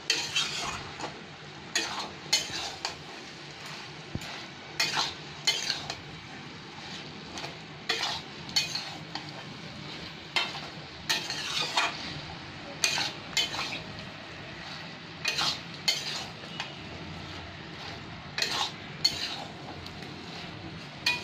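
Metal spatula scraping and stirring a thick pumpkin and prawn curry in a steel kadai, in repeated irregular strokes, over a steady low frying sizzle.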